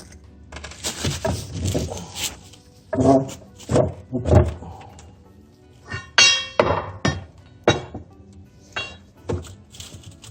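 A string of heavy thunks and a ringing clank as the rubber track of a Bobcat T190 skid steer is worked off the idler wheel over pipes.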